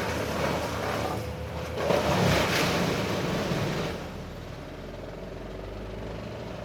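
Gas-powered brush chipper engine running, louder for a couple of seconds, then settling to a steady idle about four seconds in.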